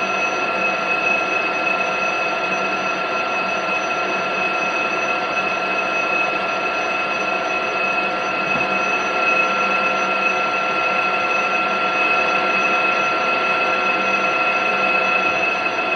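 Metal lathe running steadily while a fine cut is taken on a steel shaft: a constant machine whine with several steady high tones over an even hiss.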